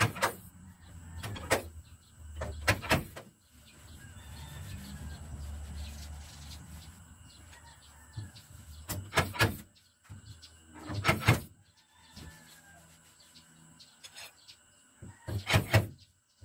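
Dent-puller spot welder working on a car bonnet: sharp metallic strikes in about five short groups, several of them doubled, a few seconds apart, with a low electric hum in between.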